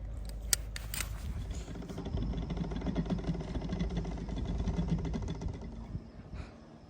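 A winch running steadily with a fast mechanical rattle, hoisting a person up the sailboat's mast. It is preceded by a few metallic clicks of rigging hardware and fades out near the end.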